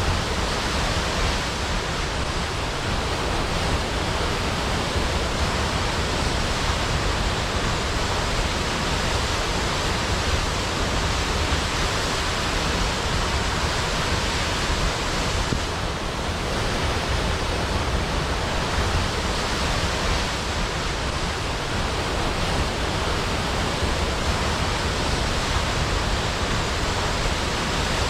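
Large waterfall: a steady, dense rush of falling water plunging into a pool.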